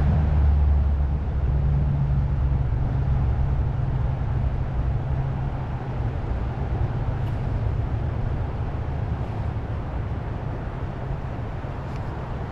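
Steady low rumbling noise with a hiss above it, a little louder in the first couple of seconds and then easing slightly; a couple of faint ticks about seven and twelve seconds in.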